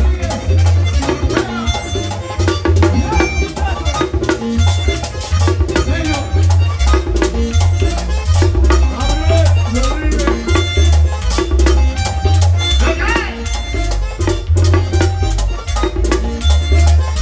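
Latin dance band music with a heavy, repeating bass line and a steady drum and percussion beat.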